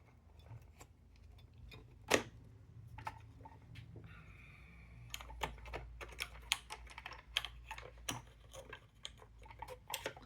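Small clicks and taps of fingers handling and prying at pieces of a puzzle box, scattered and irregular, with one sharper click about two seconds in and a quicker run of clicks in the second half.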